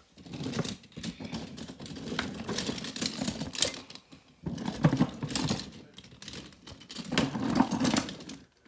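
Small die-cast toy monster trucks clattering and clicking against each other as a hand rummages through a container packed with them. The clicks come in quick, irregular runs, with a brief pause about four seconds in.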